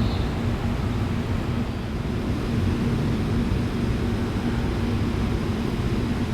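Airliner engines: a steady low rumble with a faint steady hum, unchanging throughout.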